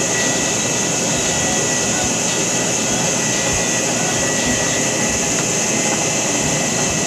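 Steady blowing noise of a running fan-type appliance, even throughout, with a faint high whine in it.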